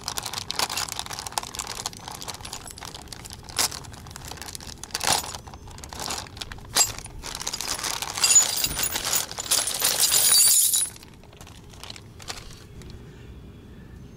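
A clear plastic bag of hitch hardware being handled: crinkling and rustling with small metallic clicks and clinks of the parts inside. It builds to a louder, sustained crackle for a few seconds, then cuts off abruptly about eleven seconds in.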